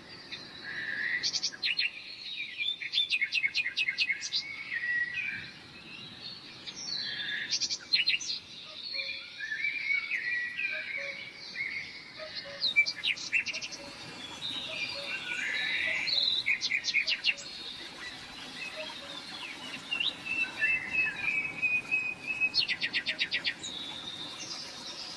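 Songbirds chirping and singing, with quick rapid trills and short whistled notes coming and going throughout.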